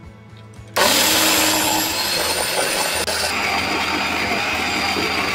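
Electric mixer grinder switched on about a second in, its motor running loud and steady with a whine as the steel jar grinds soaked urad dal with water into dosa batter. About three seconds in, the whine drops to a lower pitch.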